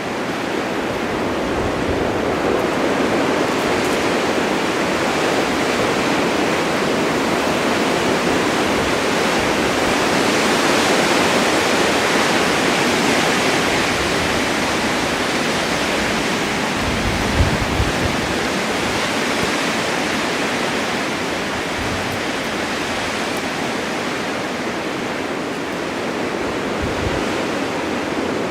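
Blizzard wind driving snow: a steady rushing that swells and eases slowly, loudest towards the middle. Low gusts buffet the microphone a little past halfway.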